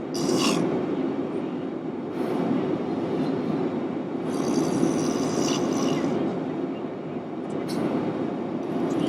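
Airliner cabin drone with a man's heavy snoring over it: breathy surges a couple of seconds apart, the longest about halfway through.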